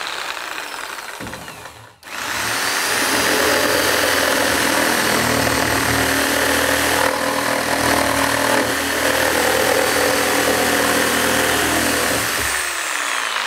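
Reciprocating saw with a bi-metal blade for nail-embedded wood, cutting through softwood timber that holds floorboard nails. After a short first burst and a brief pause it runs steadily for about ten seconds, then the motor winds down near the end.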